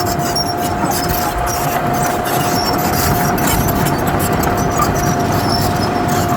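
Heavy earthmoving machinery's diesel engine running steadily, with a steady high whine over the rumble.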